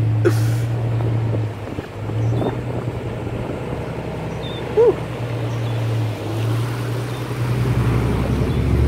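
Diesel Ram 2500 pickup's engine running steadily under load as it tows a stalled, flooded SUV out on a strap, with muddy water washing around the wheels and wind on the microphone.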